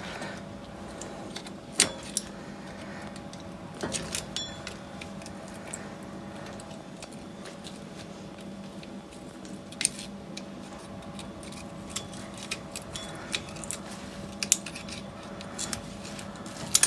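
Hand tools and loose metal hub parts clinking now and then, a few sharp light clinks scattered through, over a steady background hum.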